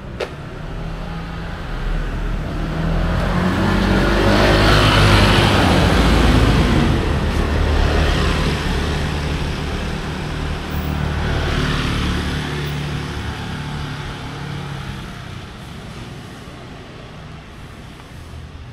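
City street traffic: motor vehicles pass close by, their engine noise swelling to a loud peak a few seconds in, rising again briefly about eleven seconds in, then fading.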